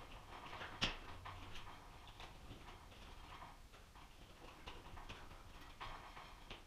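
Faint, irregular small clicks and taps of a light fixture's mounting hardware and wiring being handled at a ceiling electrical box, with one sharper click about a second in.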